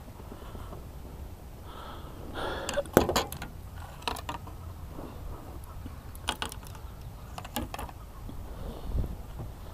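Clicks and knocks of fishing rods and spinning reels being handled on a boat's deck: scattered sharp clatters, the loudest about three seconds in, and a dull thump near the end.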